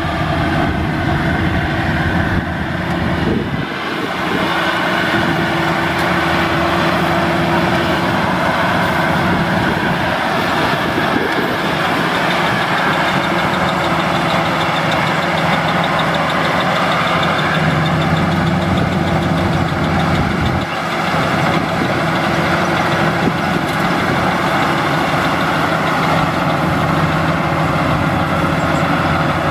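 Rice combine harvester's engine running steadily under a noisy mechanical whirr, its low hum dropping out briefly twice.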